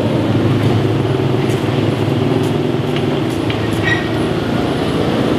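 Water running steadily from a garden hose into a plastic basin, a low even splashing rush, with a few faint clinks of crockery.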